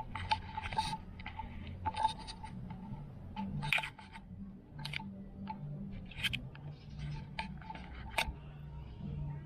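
Irregular clicks, taps and rustles of small objects being handled, over a low steady hum.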